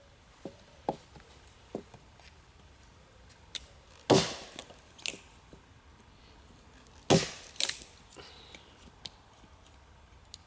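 Hatchet splitting a short stick of wood: a few light wooden taps, then two heavy knocks about three seconds apart as the hatchet and the stick are struck down on a log, each followed by a brief crackle of the wood splitting.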